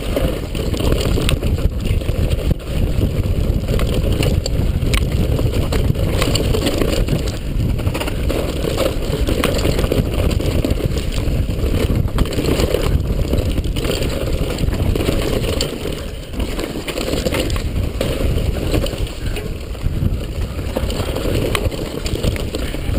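Downhill mountain bike rattling over a rough dirt trail, heard from a camera mounted on the rider: a steady low rumble of tyres and wind on the microphone, broken by frequent sharp knocks from the bike jolting over the ground.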